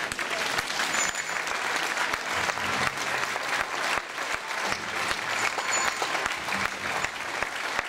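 Crowd of spectators applauding, many hands clapping steadily.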